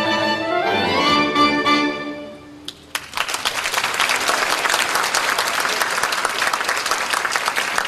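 Saxophone quartet of soprano, alto, tenor and baritone saxophones playing the closing bars, with a rising run into a held final chord that fades out about two and a half seconds in. Then the audience applauds steadily.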